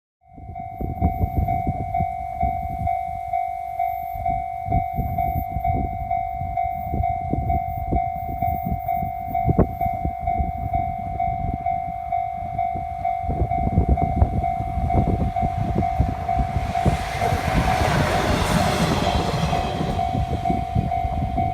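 Japanese level-crossing warning bell ringing in a steady, pulsing clang over a low rumble, as a 719-series electric train approaches. From about 17 seconds in the train passes over the crossing, its wheel and running noise swelling loud for a few seconds while the bell keeps ringing.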